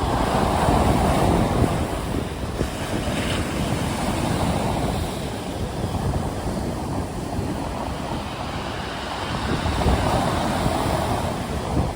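Stormy sea waves surging and washing in, with a steady low rumble of wind on the microphone. The surf swells louder about a second in and again near the end.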